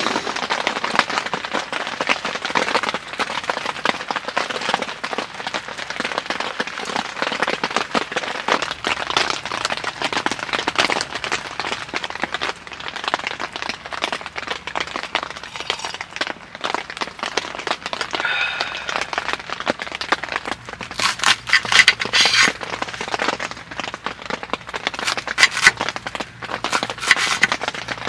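Dense crackling of many small sharp clicks and pops, with louder, more separate pops in the last third.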